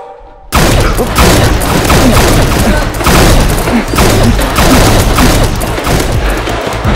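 A continuous barrage of rapid shots from several blasters firing at once, cutting in suddenly about half a second in.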